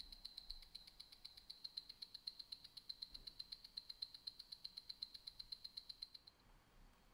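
Cartier Roadster's ETA 2892-A2 automatic movement ticking on a timegrapher: a rapid, even beat of eight ticks a second, its 28,800 beats an hour. The beat is regular, with a beat error of only 0.1 ms. The ticking stops about six seconds in.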